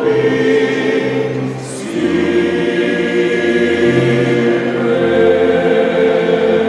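Church choir singing a hymn in long held notes, with a short break between phrases about one and a half seconds in.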